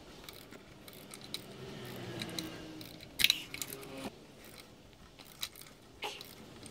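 A few scattered metallic clicks and knocks from a socket wrench turning the BMW M10 engine's crankshaft by hand, over a faint low hum.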